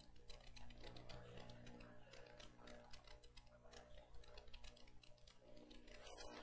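Near silence: a faint steady low hum with light, irregular clicking.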